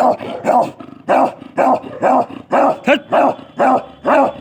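A dog barking over and over in a steady rhythm, about two loud barks a second.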